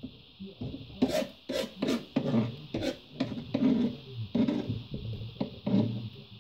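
A kitchen knife cutting and scraping on a plastic cutting board: about a dozen irregular strokes starting about a second in, over a steady faint hiss.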